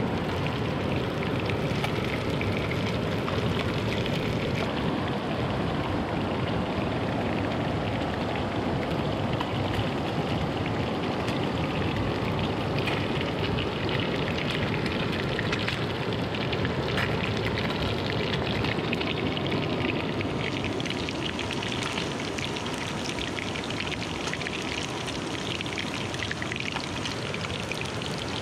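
Steady rushing water of a hill stream: an even, unbroken hiss.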